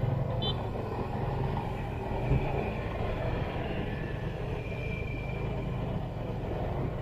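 Vehicle engine and road traffic on a city street: a steady low rumble, with a short knock about two and a half seconds in.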